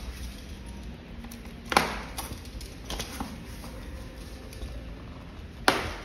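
Foam and plastic packing being pulled off an e-bike frame: scattered light clicks and rustling, with two sharp cracks, one a little under two seconds in and one near the end.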